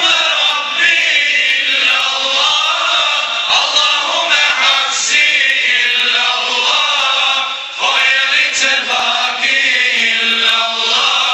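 Group of men singing an ilahija, a Bosnian Islamic hymn, together, with a short break between phrases about eight seconds in.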